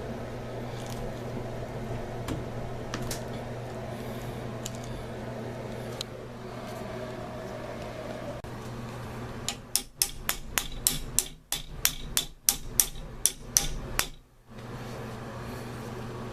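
Hammer tapping a shower valve part into place: a run of about fifteen sharp taps, roughly three a second, starting about two-thirds of the way in, over a steady low hum.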